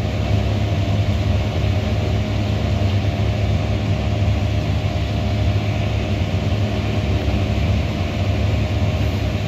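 A 190-horsepower tractor running steadily under load on its PTO, driving a forage blower that is blowing chopped corn silage up into a silo, heard from inside the tractor cab.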